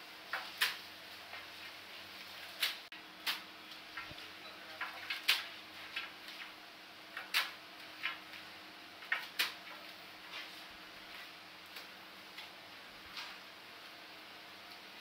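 Hands mixing spiced, marinated mutton in a large metal pot: irregular sharp wet slaps and clicks of meat against the pot, one or two a second, over a faint steady hum.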